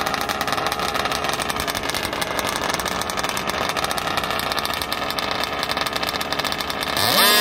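Small two-stroke gas engines of two 1/5-scale RC dragsters idling together at the start line, a fast, steady popping. Near the end they rev sharply up in pitch and get louder as the cars launch.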